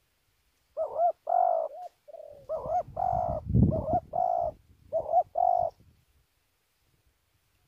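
Spotted dove cooing: a run of repeated coo notes in short groups, lasting about five seconds.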